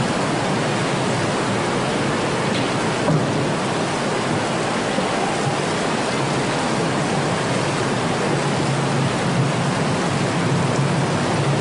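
Tsunami floodwater rushing and churning through a town street as a steady, even wash of water noise.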